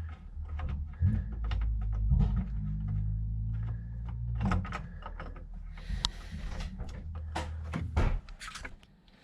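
Hand work on a battery clamp's wing nuts: scattered small clicks, knocks and scrapes over a low rumble that fades out about halfway through.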